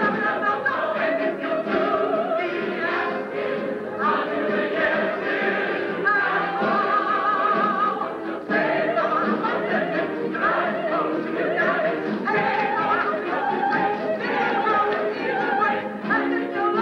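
Musical-theatre company singing a show number in chorus, the voices held on long notes with wide vibrato.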